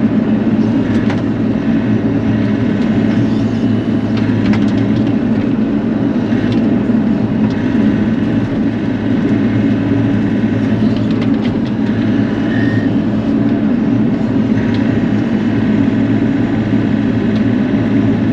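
Bobcat E42 mini excavator's diesel engine running steadily under working load, with a few scattered sharp clicks and snaps over it.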